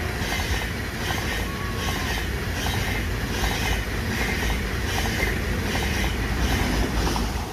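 ICE high-speed train running through a station at speed without stopping: a steady loud rush of wheels and air with a rhythmic clatter about twice a second as the wheel sets cross the rail joints, dropping off at the very end as the last car goes by.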